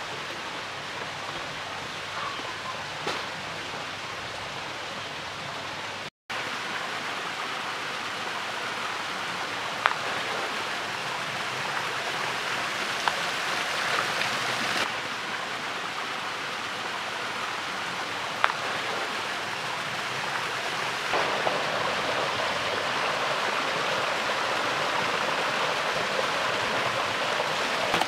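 Steady rush of flowing stream water, with a few brief sharp clicks over it; the sound drops out for an instant about six seconds in.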